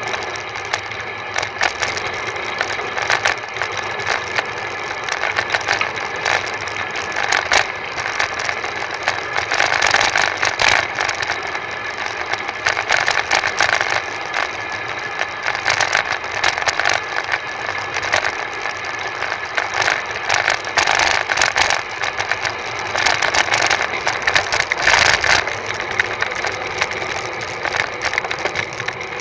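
Rattling and rolling road noise picked up by a bicycle-mounted camera as the bike runs over asphalt, with dense irregular clattering throughout.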